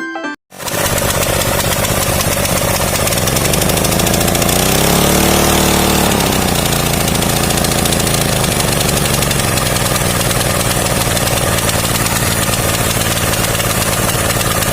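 Old small petrol engine, running on a newly fitted carburetor, starts up and runs steadily, revs up briefly about four seconds in and settles back to a steady idle.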